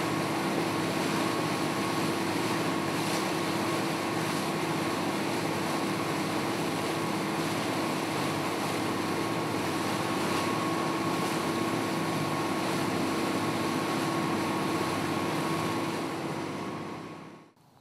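A boat under way: its engine running with a steady drone and hum over the rush of water from the wake. The sound fades out near the end.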